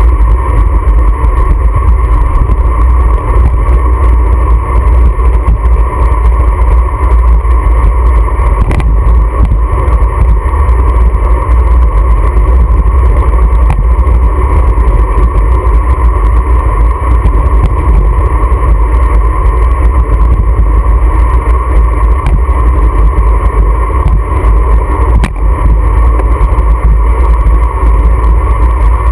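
Loud, steady wind rush buffeting a GoPro's microphone on a road bike riding fast down a mountain highway.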